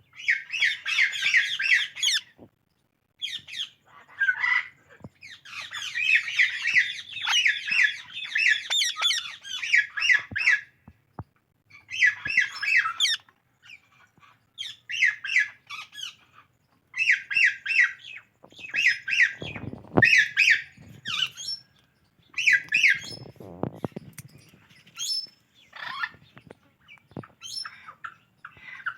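Psittacula parakeets (Indian ringneck and alexandrine type) calling in repeated bursts of rapid, harsh squawking notes, each burst lasting a second or two with short pauses between. There are two brief low rumbles partway through.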